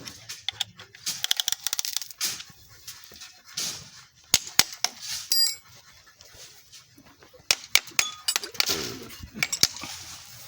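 Metal hand tools clinking, tapping and knocking on engine parts in irregular sharp strikes, with a short metallic ring about five seconds in.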